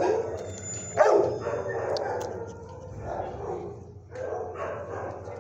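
Dogs barking in a shelter kennel, the barks overlapping and continuous, with the loudest bark about a second in.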